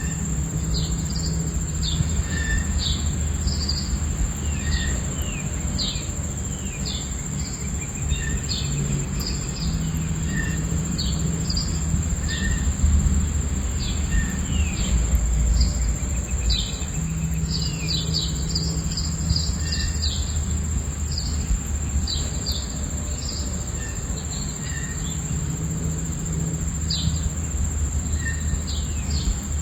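Birds chirping many times with short falling notes over a continuous high cricket trill, with a low steady rush of falling water underneath.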